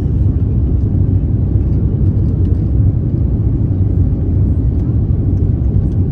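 Airbus A350-900 cabin noise in the climb after takeoff: a steady low rumble of the jet engines and rushing air.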